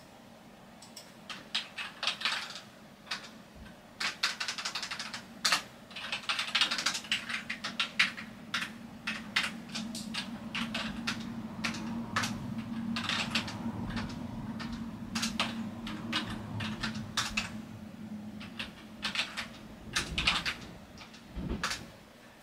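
Typing on a computer keyboard: keys clicking in irregular bursts, with a low steady hum underneath for most of the time.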